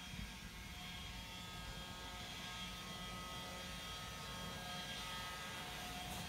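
A steady mechanical hum made up of several faint steady tones, over an uneven low rumble.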